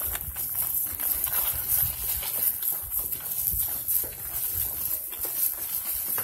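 Footsteps of people walking briskly on a hard tiled floor: a run of short, uneven knocks.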